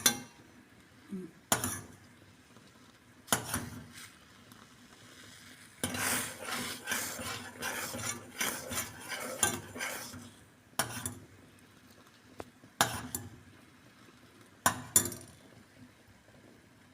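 A metal spoon stirring a thickening mixture in a pot on a gas burner. It scrapes and clinks steadily for a few seconds mid-way and strikes the pot sharply several times, about every two seconds.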